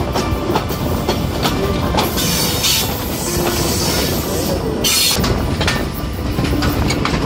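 Allama Iqbal Express passenger train running at speed, heard from an open coach doorway: a steady rumble of wheels on the track with many rail-joint clicks. Stretches of high hiss come about two seconds in and again around five seconds.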